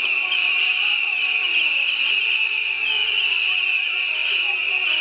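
A firework tower firing a dense stream of rockets: a continuous shrill whistling hiss made of many short overlapping whistles.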